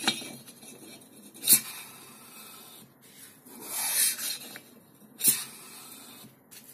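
Pistons sliding and scraping by hand inside a pair of freshly bored two-stroke motorcycle cylinders, with a few sharp metal knocks and one longer scrape a little before the middle.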